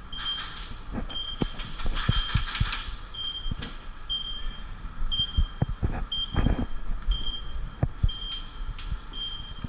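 A short, high electronic beep repeating about once a second, over scattered knocks and rustling from movement.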